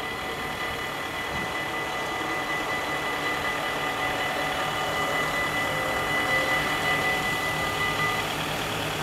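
Mechanical bell of a Dutch automatic half-barrier level crossing ringing steadily while the barriers rise, stopping about eight seconds in as the booms reach the top. A low engine hum runs underneath.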